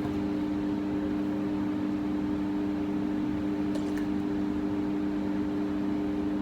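Steady mechanical hum at an even level, with a faint clink about four seconds in.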